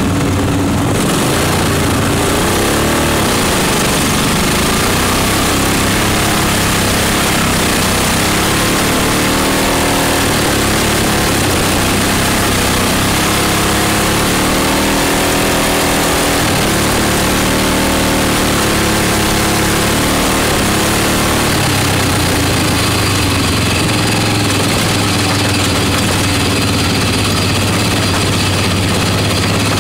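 Racing lawn mower's small engine running steadily at close range, with other engines rising and falling in pitch between about two and twenty seconds in.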